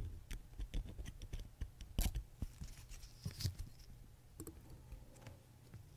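Faint, scattered clicks and taps of brass tweezers against the small steel and brass parts of a pocket watch movement, with the loudest click about two seconds in.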